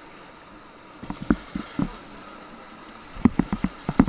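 Steady rush of river water around a raft, with scattered short knocks and splashes that come thicker near the end.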